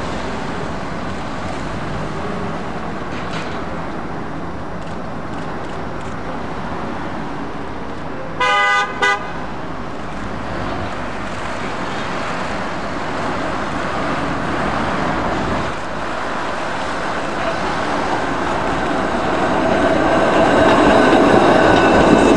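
Double-deck electric tram (Blackpool Balloon car) approaching along street tracks over steady traffic noise, with two short toots of a horn about eight and a half seconds in. The tram's running grows louder near the end as it passes close, with a steady whine.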